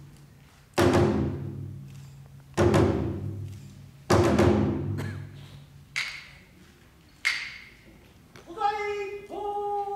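Large Japanese taiko drum struck three times about a second and a half apart, each heavy stroke ringing on with a low boom, then three lighter strikes with a higher ring. Near the end a puppet-play chanter starts a long, drawn-out sung call that slides slowly downward in pitch.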